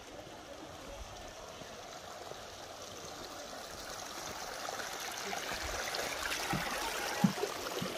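A stream flowing, growing steadily louder, with one sharp knock near the end.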